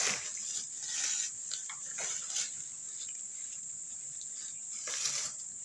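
Crickets chirring in a steady, high-pitched chorus, with a few short, soft noises scattered through it.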